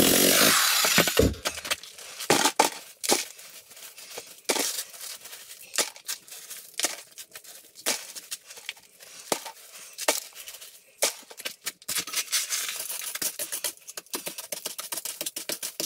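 A jackhammer runs against the concrete slab for about a second and stops. Then broken concrete chunks clink and knock as they are picked out of the trench by hand and dropped into a plastic bucket, with loose gravel scraped together by hand near the end.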